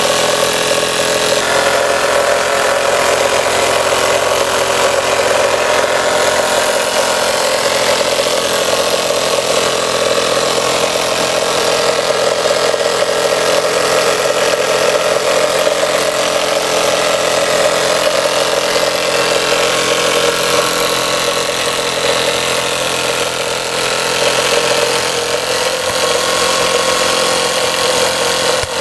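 Two-cylinder DM-1 model steam engine running fast and steady on steam, driving a small dynamo, with a continuous hiss over a steady hum.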